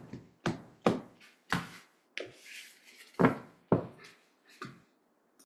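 Tarot deck being shuffled and handled: a series of irregular soft slaps and thuds, about eight in all, with a brief papery rustle of cards between two and three seconds in.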